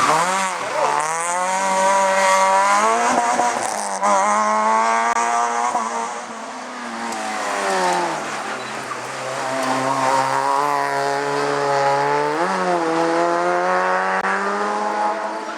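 Race car engine at high revs, its pitch climbing hard, dropping abruptly and climbing again as it shifts gears and lifts off the throttle, with a quick throttle blip near the end.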